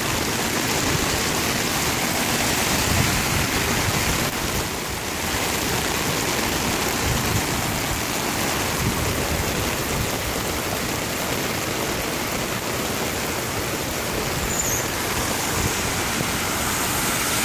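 Floodwater rushing across a paved street, a steady, even rush of water.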